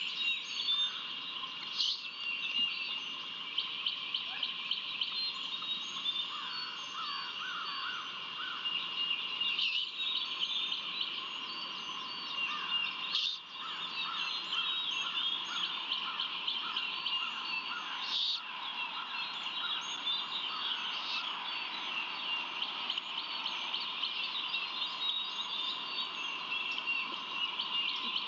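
Dawn chorus of wild songbirds: many overlapping chirps and short songs over a steady high-pitched drone, with a few brief clicks.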